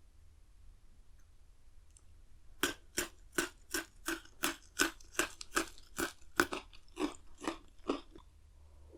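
Crunchy chewing of a Pocky chocolate-coated biscuit stick: about fifteen sharp, even crunches, roughly three a second, starting a couple of seconds in and stopping shortly before the end.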